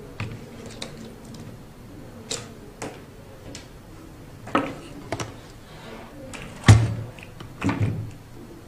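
Irregular clicks and light knocks of a hexapod robot's metal frame and parts being handled on a work mat. The loudest, heavier knock comes about two-thirds of the way in, with another a second later as the frame is turned.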